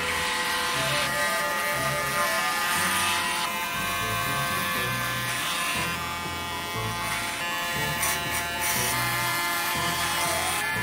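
Electric hair clipper buzzing steadily as it cuts through hair, over background music with a steady bass beat.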